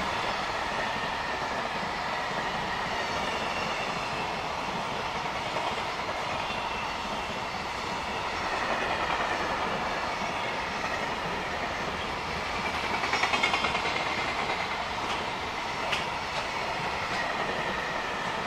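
Freight container train rolling past: the wheels of its Koki 104 container flatcars clatter over the rail joints in a steady rumble, with a faint high ringing from the wheels.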